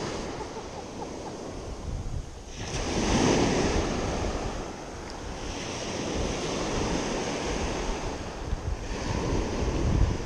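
Sea waves breaking and washing up the shore, swelling about three seconds in and again near the end, with wind rumbling on the microphone.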